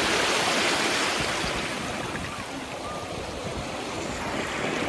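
Small waves breaking and washing up over a shelly beach at the water's edge, the surf loud at first, easing off midway and building again near the end.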